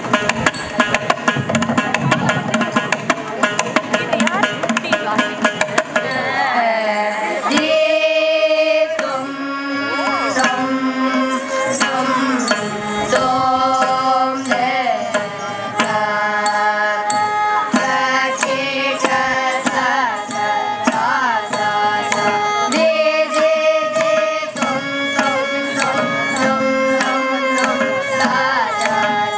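Live Carnatic music for a dance: a mridangam plays a fast run of strokes for about six seconds, then a singer comes in with a melodic line while the drum keeps playing under the voice.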